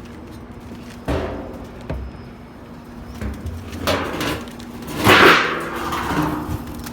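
Pigeons being let out of their loft: two sharp knocks, then louder rustling clatter about four and five seconds in, under a steady low hum.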